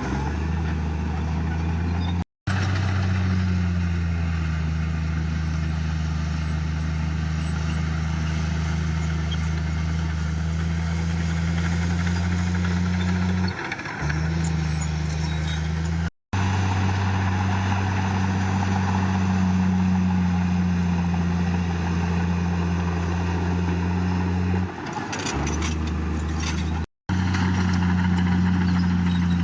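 Bulldozer's heavy diesel engine running steadily under load, its pitch dipping briefly twice. The sound drops out abruptly three times.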